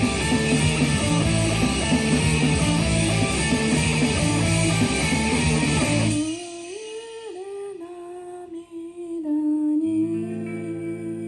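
Live rock band playing loud with guitars, then breaking off abruptly about six seconds in. What remains is a single melodic line, sung or hummed, moving between a few held notes. A low sustained note joins near the end.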